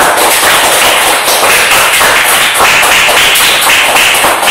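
A small group clapping hands in quick, dense applause, the sign that the listeners are awarding a merit to the speaker's point.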